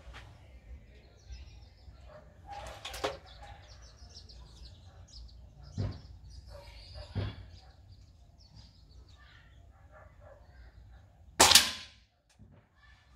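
A 6.35 mm air rifle firing a single shot near the end, a sharp report far louder than anything else. Before it come a few quieter knocks and clicks.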